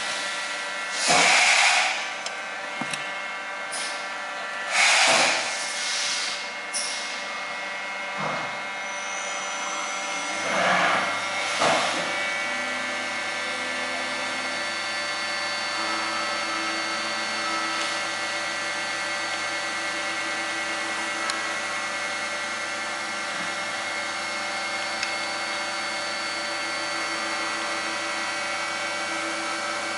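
A steady workshop machine drone made of many fixed tones, with four short, loud, rasping bursts of handling noise in the first twelve seconds or so, as the lead screw nuts and locking screw are fitted into the housing.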